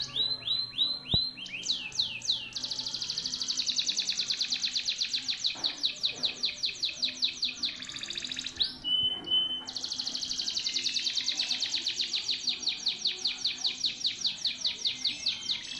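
Domestic canary singing: a few separate swooping notes, then long runs of rapid rolling trills lasting several seconds each. About nine seconds in there is a brief break with two short steady whistles.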